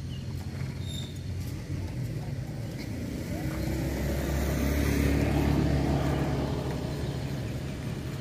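A motor vehicle's engine running low and steady, swelling to its loudest about five seconds in and then fading, as if passing by.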